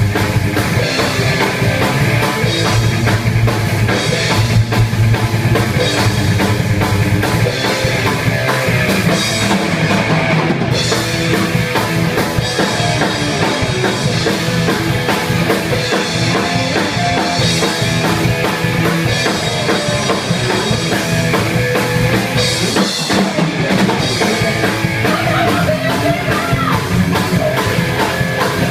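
Rock music with a driving drum kit, bass and guitar.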